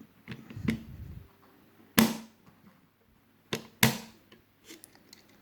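Clicks and knocks of an airsoft version 2 gearbox being handled as its top shell half is fitted over the bottom half, with parts tapping against each other. There are a few small clicks early on, then two louder knocks, about two seconds in and just before four seconds.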